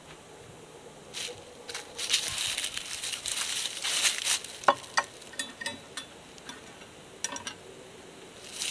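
Dry fallen leaves crunching and rustling, then a string of light knocks and clinks as a black skillet is set down and handled on a wooden picnic table.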